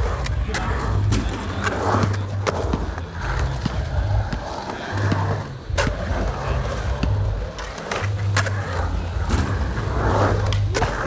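Skateboard wheels rolling on a concrete pool bowl. A steady low rumble swells and eases as the rider carves past, with scattered sharp clacks throughout.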